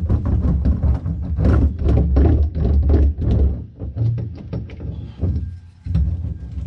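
Hand roller and hand pressing foil-faced sound-deadening mat down onto a VW Super Beetle's steel floor pan: a dense, irregular run of rubbing and knocking noises, quieter for a stretch past the middle.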